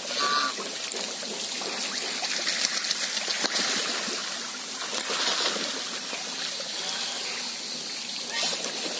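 Steady trickle of running water into a pond, with splashing from geese bathing in it. A brief goose call comes near the start.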